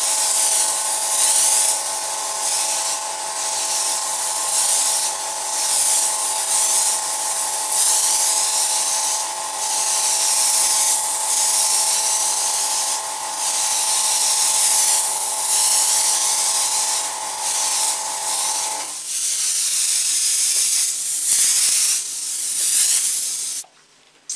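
Airbrush spraying thin layers of paint: a loud hiss of air that swells and breaks off every second or two as the trigger is worked. Under it a small air compressor hums steadily and stops about 19 seconds in.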